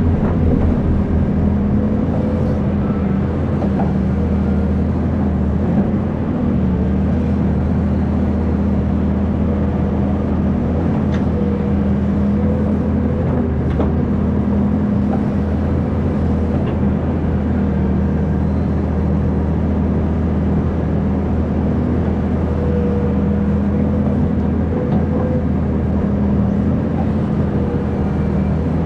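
Hydraulic excavator's diesel engine running steadily at working speed: a continuous low drone with a steady hum above it.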